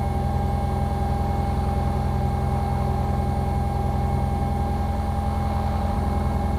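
Piston engine of a Commander light airplane idling steadily on the ground, heard from the cockpit, with a constant tone held above the engine.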